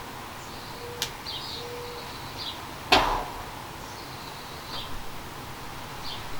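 Small birds chirping faintly in the background, with a light click about a second in and a single sharp knock about three seconds in.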